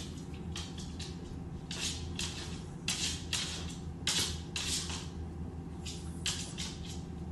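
A small dog's claws tapping and scuffing irregularly on a hardwood floor as it walks, over a steady low hum of room tone.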